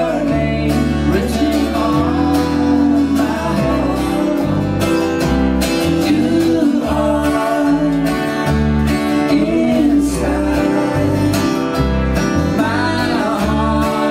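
Live country-style Americana song: strummed acoustic guitar over low bass notes, with a man singing lead and a woman's voice singing with him into a second microphone.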